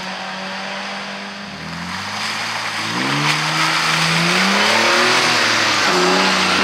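An off-road buggy's engine is revved hard, its pitch climbing and dropping several times, as the wheels spin in deep mud. A rushing noise of spinning tyres and flung mud swells about two seconds in and stays loud.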